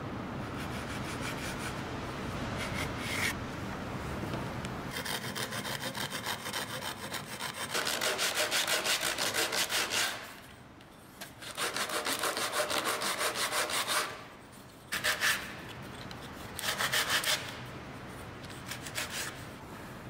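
A thin piece of wood rubbed back and forth by hand on a sheet of sandpaper laid flat on a wooden workbench, in quick, even strokes. The sanding comes in several runs, two long ones and then a few short ones, with brief pauses between them.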